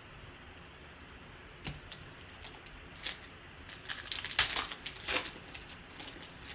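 Trading cards being handled and flipped through by hand: scattered soft clicks, slaps and rustles of card stock, busiest about four to five seconds in.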